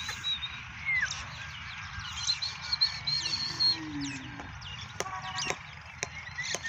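Small birds chirping and whistling over and over, with a run of quick repeated whistles in the middle, above a steady low rumble.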